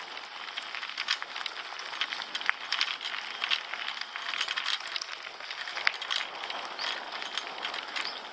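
Carrera e-bike's tyres rolling over a gravel track: a constant crackle with frequent sharp clicks and rattles from the bike jolting on the stones.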